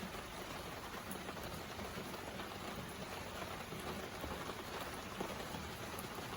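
A steady, even hiss like falling rain, with a few faint ticks.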